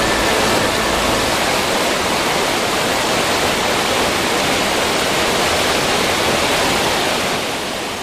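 Steady rush of flowing river water, fading out near the end.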